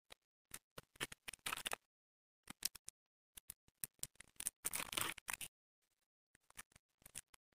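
Plastic candy and chocolate-bar wrappers crinkling and crackling as they are handled, in several short bursts of crackle with silent gaps between.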